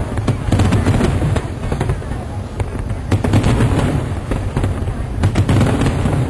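Aerial fireworks bursting in rapid, overlapping succession: a continuous crackle of sharp reports over heavy low booms.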